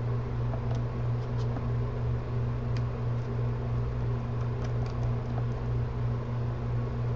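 Steady low hum, with faint, scattered light clicks of small screws and a screwdriver being worked on a camera body.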